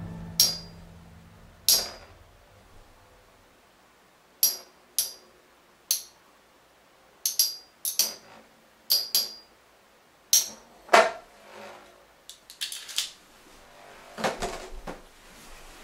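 Metal Beyblade spinning tops clicking and clinking against each other and their plastic parts, a dozen or more sharp metallic clicks at irregular gaps, some in quick pairs.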